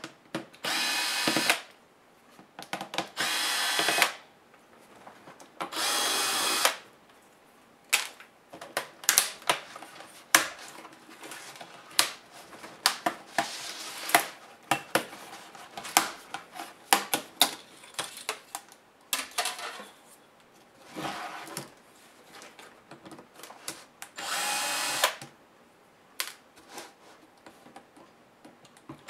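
Cordless electric screwdriver whirring in several short bursts, about a second each, as it backs screws out of a laptop's LCD display assembly. Between the bursts come quick plastic clicks and snaps, the display bezel being worked loose by hand.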